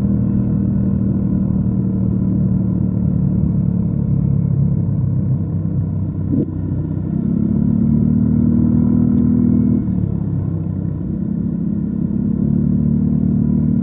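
Yamaha NMAX 155 scooter's single-cylinder engine running through an aftermarket DS4 Daeng Sai4 muffler while riding. The engine note dips as the throttle eases off about six seconds in and again about ten seconds in, picking back up after each.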